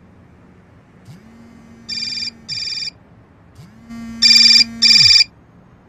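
Alarm clock ringing in short double bursts: a quieter ring-ring about two seconds in, then a louder ring-ring about four seconds in. A low hum rises before each pair and falls away after it.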